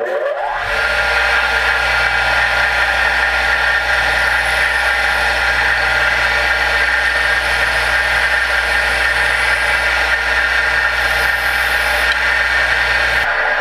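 Bench grinder motor spinning up with a rising whine, then running steadily at full speed while a TIG tungsten electrode is ground to a point on the wheel. The low hum drops away near the end.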